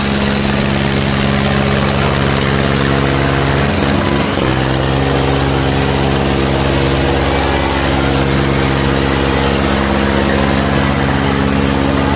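Tractor diesel engines running hard under full load, pulling against each other in a tug-of-war. A steady, deep engine drone wavers briefly in pitch about four seconds in, then settles again.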